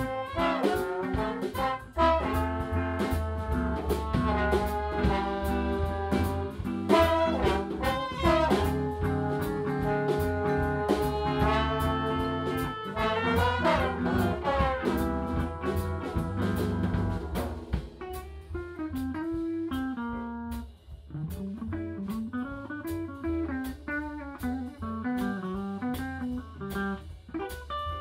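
Small jazz band playing live: trumpets and trombones play the tune together over bass and drums with a steady cymbal beat. About 18 seconds in the horns drop out, and a guitar line carries on over the rhythm section.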